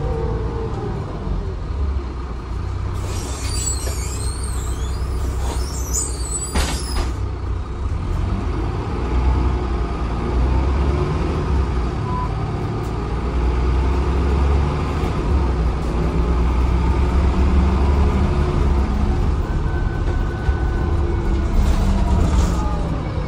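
Transbus Trident double-decker bus running under way, heard from inside the lower deck: a steady low engine and drivetrain sound with pitch glides as it changes speed. High squeaking comes in between about three and seven seconds in.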